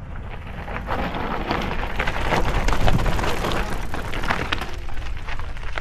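Mountain bike tyres crunching and crackling over loose gravel and rock, a dense run of small clicks over a low rumble that grows louder over the first couple of seconds.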